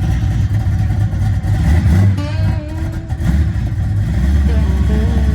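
Motor vehicle engine running with a heavy, steady low rumble.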